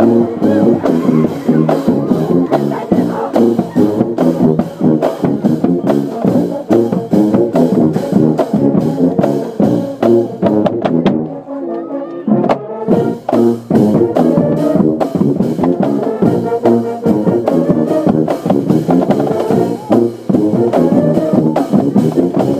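A school band playing: brass with a drum line keeping a steady beat, briefly dropping out just before the middle and coming back in.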